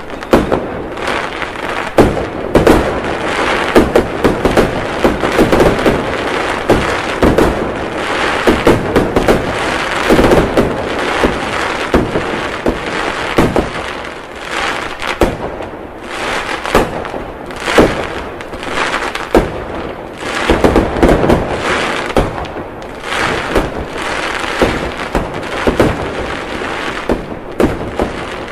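Fireworks going off in a dense barrage: sharp bangs every second or two over a continuous wash of crackle.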